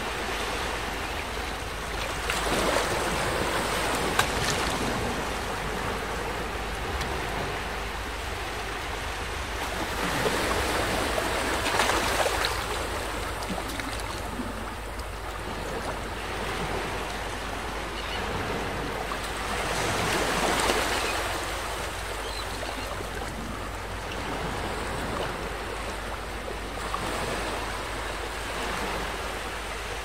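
Small ocean waves washing up onto the shore and drawing back. The surf noise swells four times, about every eight seconds.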